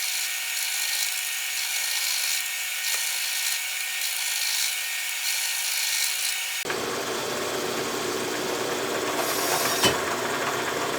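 Milling machine drilling a hole in a small metal part with a #1 drill bit, a steady hissing cut with a faint even pulse. About two-thirds of the way through the sound changes abruptly to a fuller, lower running sound.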